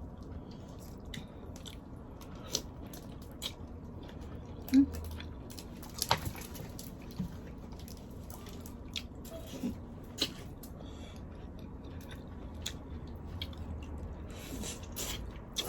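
Eating boiled seafood: scattered wet clicks and smacks of chewing and biting, with the loudest about five and six seconds in.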